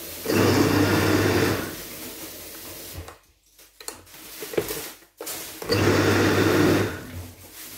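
Countertop blender motor running in two loud bursts, each a little over a second long and about four seconds apart, chopping chunks of plantain, onion and pepper. It is quieter in between.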